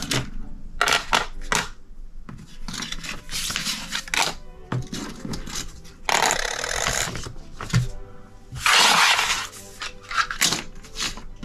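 Handling tools and their paper packet: rustling of the paper packet, with light clicks and clatter as plastic and metal prying tools are set down on the laptop's aluminium bottom case.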